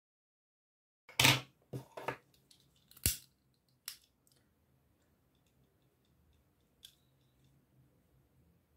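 Hand-handling noises from crochet work: after about a second of dead silence, a cluster of short rustles and clicks, a sharp click near three seconds, then faint small movements.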